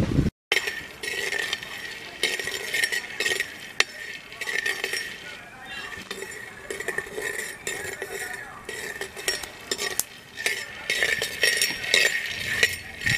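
A steel ladle stirring peanuts roasting in an earthen clay pot: the nuts rattle and clink against the pot and the spoon in many short, sharp clicks, with scraping strokes of the ladle.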